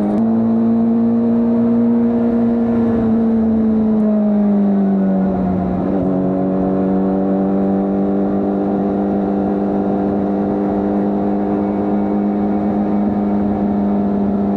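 Honda CBR600RR's inline-four engine with stock exhaust, heard while riding: a steady high-revving note whose pitch eases down about four to five seconds in, then holds steady at cruising speed.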